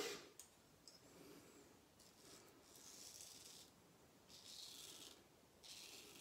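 Razor blade scraping through lathered stubble in several separate strokes, each about a second long, faint and hissy.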